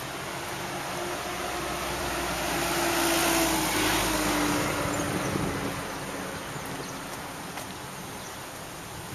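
A car drives past close by on the street, its tyre and engine noise swelling to a peak about three seconds in and then fading, the engine hum dropping slightly in pitch as it goes by. Steady street traffic continues underneath.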